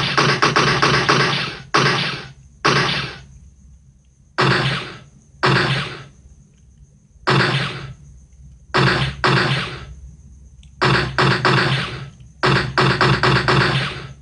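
Gunfire sound effects: a burst of rapid automatic fire, then a string of single shots each trailing off, then more short automatic bursts near the end.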